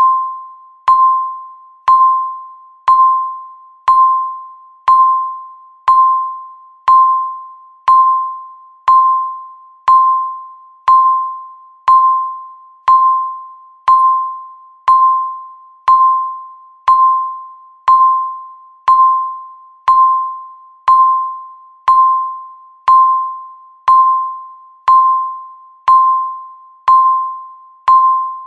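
Countdown timer beeping once every second: a single mid-pitched electronic tone that starts sharply and fades quickly, repeating at a perfectly even one-second pace.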